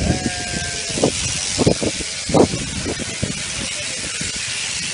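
A sheep being shorn with a shaft-driven shearing machine: a steady high hiss with several sharp knocks. A sheep bleats once, briefly, at the start.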